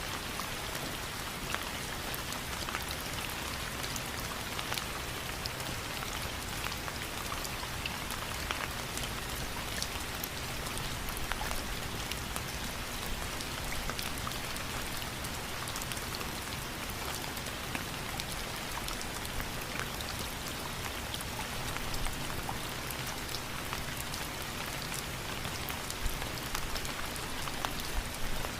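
Steady rain falling, an even hiss with many scattered drop ticks on a surface.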